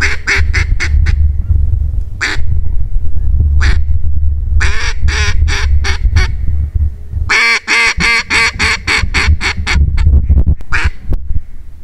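Mallard duck call blown in loud runs of quacks: a short run at the start, a few single quacks, another run about five seconds in, and a long fast run from about seven and a half to ten seconds, calling to ducks flying over the spread.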